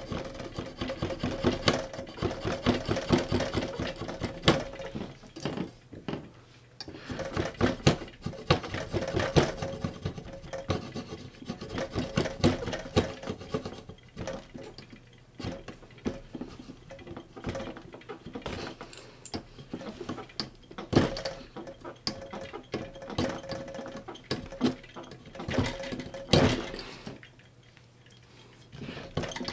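Non-scratching scraper tool scraping and picking at a stubborn sticker on a DJ mixer's top plate: quick scratchy scrapes and small clicks in bursts, with a brief quieter stretch near the end.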